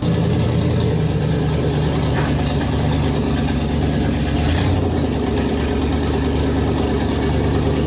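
An engine running steadily at idle, starting abruptly and holding an even, low pitch.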